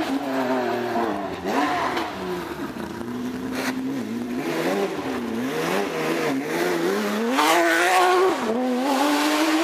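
Rally car engine being worked hard, its pitch climbing and dropping again and again with throttle lifts and gear changes, growing louder toward the end as the car comes closer.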